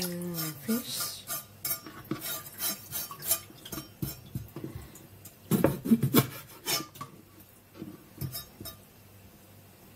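A blade scraping and tapping against fresh sardines on a plastic cutting board as the fish are cleaned: a run of short scrapes and clicks, loudest about five and a half to six seconds in, then fainter.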